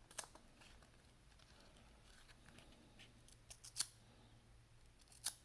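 Faint clicks and crinkles of a trading-card pack being opened and its cards handled, with a sharper snap a little under four seconds in and another near the end.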